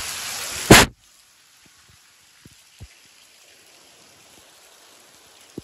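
Heavy rain falling on a concrete rooftop, with a sharp loud knock just before a second in; the rain then drops suddenly to a much fainter hiss with a few soft taps.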